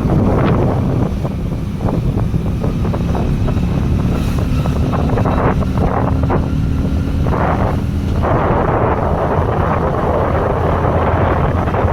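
Wind buffeting the microphone on a vehicle on the move, over running engine and road noise, in uneven gusts.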